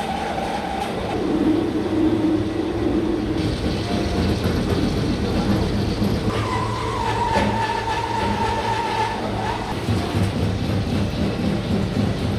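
Workshop machinery running steadily with a low hum, with long high-pitched tones that come and go and change pitch a few times.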